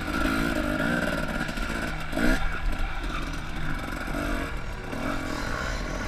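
Dirt bike engine revving up and down, with a quick rising rev about two seconds in.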